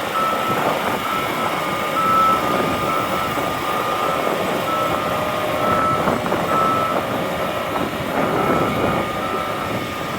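Heavy farm machinery running steadily, with a high-pitched warning beep that sounds repeatedly at uneven intervals, some beeps short and some held longer.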